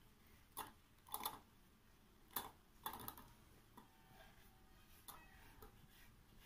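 Chopped onion, tomato and green chilli swept off a wooden chopping board into a steel bowl of batter. There are faint, sharp taps and knocks, about six in the first three seconds and one more a little after five seconds.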